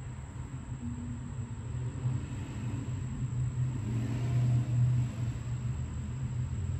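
A low steady rumble that swells about four seconds in and eases off again, with a faint steady high whine above it.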